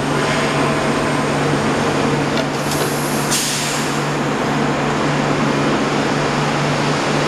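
Bombardier CX-100 people-mover train standing at the platform with a steady hum from its onboard equipment. Its doors slide shut, with a brief hiss about three seconds in.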